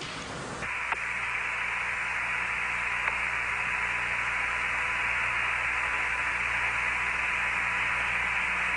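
Steady static hiss on the Apollo air-to-ground radio channel, with a faint steady tone and a low hum beneath it; the hiss steps up and settles to a constant level about a second in.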